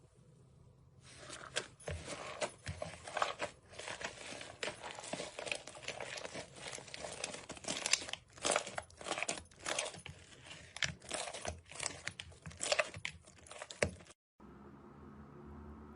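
Slime being squeezed and worked by hand, giving a dense, irregular run of crackling, crinkling pops. It starts about a second in and cuts off suddenly near the end.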